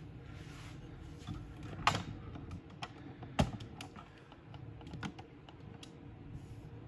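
Scattered clicks and knocks of small engine parts and tools being handled and set down on a metal workbench, with two sharper knocks about two and three and a half seconds in.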